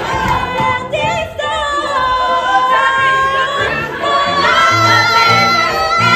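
Young women singing a musical-theatre song with accompaniment, holding long sustained notes.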